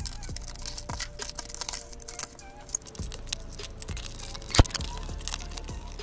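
Shattered glass top of a kitchen scale being picked and prised off, glass shards cracking, clicking and clinking against each other and the plate, with one sharp, much louder crack about four and a half seconds in.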